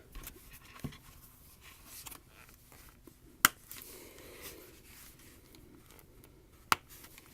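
Plastic parts of a paintball mask being handled: faint rubbing and scraping, with two sharp clicks about three seconds apart.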